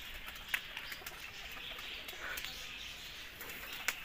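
Faint bird calls over quiet outdoor background, with a couple of sharp clicks, one about half a second in and one near the end.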